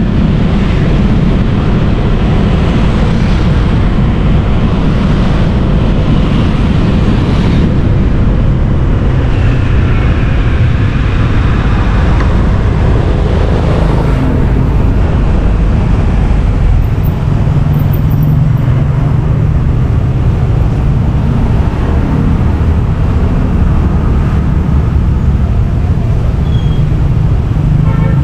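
Steady road and traffic noise heard from a vehicle moving through city streets, with a continuous low engine drone.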